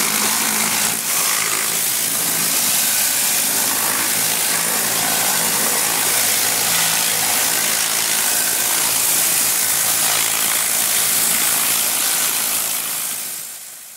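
Tornador air-powered cleaning gun blowing a steady hiss of compressed air and cleaner over an engine bay, with a steady low motor hum underneath. The hiss fades out near the end.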